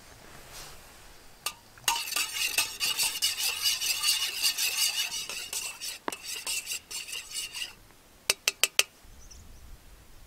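A spoon stirring in a metal camp mug, clinking quickly against the sides for about six seconds, then four quick taps on the rim.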